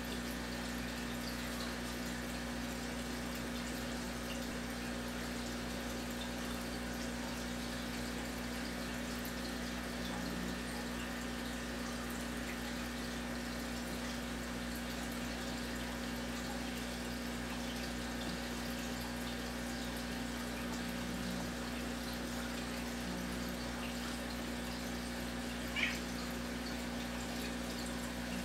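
Aquarium filtration running steadily: a low electric hum with faint trickling and bubbling water. Near the end, a brief higher-pitched squeak.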